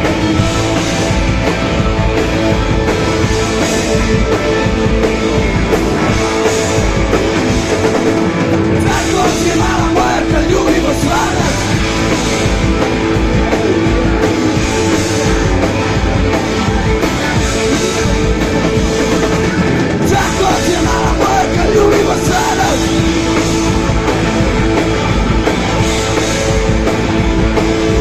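Rock band playing an instrumental break with drums and guitar. A wavering lead melody comes in twice, about a third of the way through and again past two-thirds.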